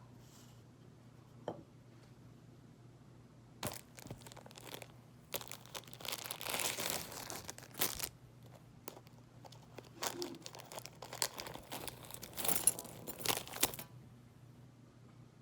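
Irregular bursts of crinkling and rustling, as of plastic or paper being handled, from about four seconds in until near the end, over a faint steady hum.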